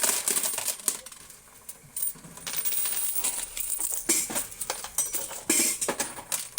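Quarters clattering as they spill off a coin-pusher machine's ledge and into its payout tray, in several rushes of jingling metal.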